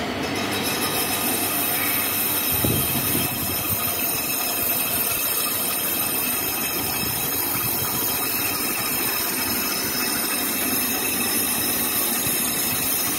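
Super Asia lathe running while a cutting tool turns a cast-iron brake disc: a steady grinding scrape of tool on metal over the machine's hum, with one short knock about two and a half seconds in.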